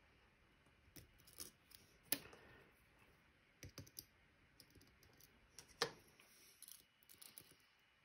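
Faint metal clicks and scrapes of a lock pick working the pin stacks of a Medeco M3 lock under tension: a handful of irregular sharp clicks, the two loudest about two and six seconds in.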